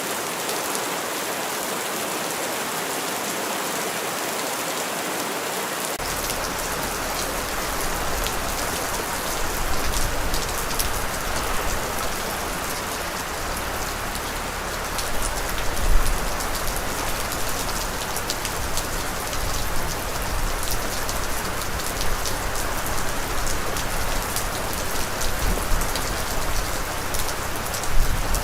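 Steady rain falling, a dense hiss of many drops. About six seconds in, a deeper low rumble joins the patter and stays to the end.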